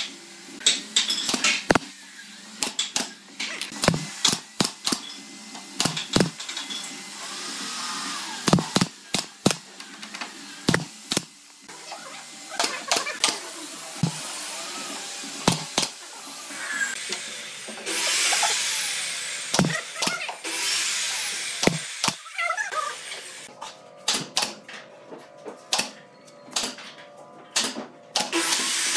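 Woodworking sounds: a long run of knocks and clicks as wood and tools are handled, with two short stretches of a power tool running about two-thirds of the way through.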